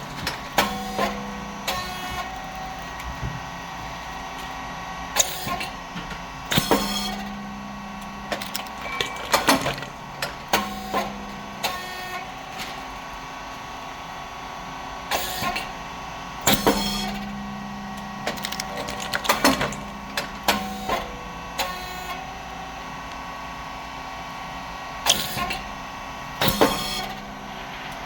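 Rice cake popping machine with titanium-coated triangle moulds running its cycles: clusters of sharp pops and clacks as the heated moulds press and release the puffed chips, repeating every few seconds over a steady hum of the motor, pump and fan.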